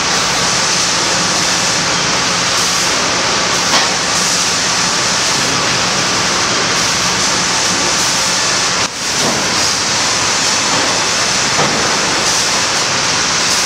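Steady, loud din of sawmill machinery, with cants carried on transfer chains and conveyor rolls to a bull edger. The noise dips briefly about nine seconds in, then carries on.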